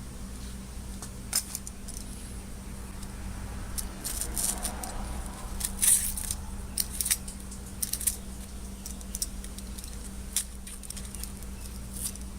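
Steady machine hum with irregular sharp metallic clicks and scrapes as a tool works on the cast-iron vise, the loudest about halfway through.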